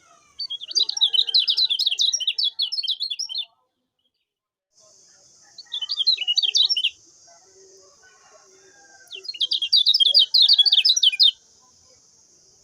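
Kecial kuning (lemon-bellied white-eye) singing in three bursts of fast, chattering twitter. The first burst is about three seconds long, the second is short, and the third is about two seconds long. A steady high hiss runs under the later two bursts.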